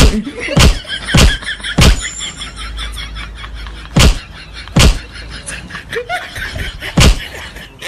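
A run of loud, sharp slaps as people are struck by hand: six smacks, irregularly spaced, three in quick succession near the start and three more later.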